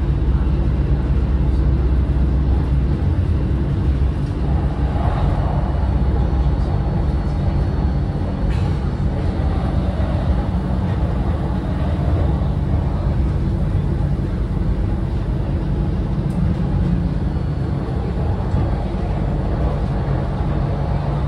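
Alicante tram in motion: a steady low rumble that does not let up.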